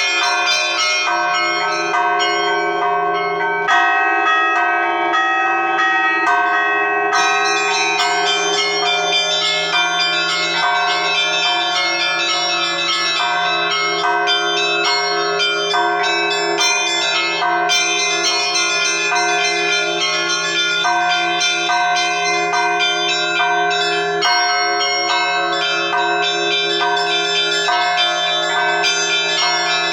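Russian Orthodox church bells ringing a continuous peal: a dense, rapid pattern of strikes on the smaller bells over the steady low hum of a larger bell. It is the ringing that calls the faithful to the late Liturgy.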